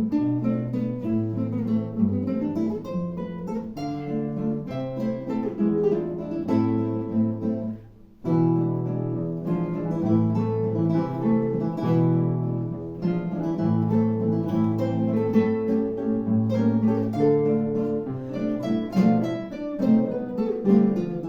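Solo classical guitar playing a piece with plucked melody and bass notes, with a short pause about eight seconds in before the playing resumes.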